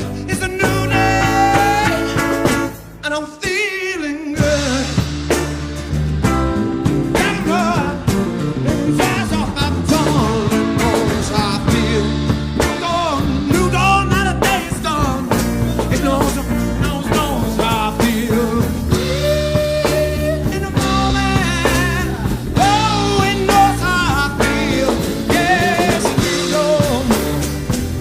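Background music: a rock-blues song with singing and a steady bass line, dipping briefly about three seconds in.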